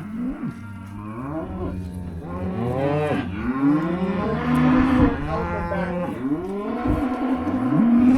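Several cattle bawling over one another in a pen during weaning, long calls that rise and fall in pitch, overlapping one after another.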